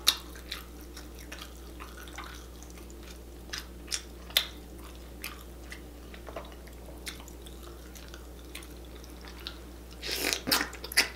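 Soft wet clicks and squishes of fingers picking through a bowl of sauce-covered chicken and seafood, then biting and chewing with mouth smacks about ten seconds in.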